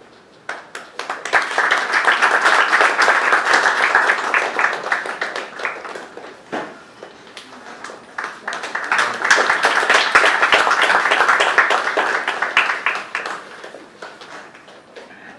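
Audience applauding in two rounds: one rising about a second in and dying away after about five seconds, a second from about eight and a half seconds to about thirteen, with a quieter lull between.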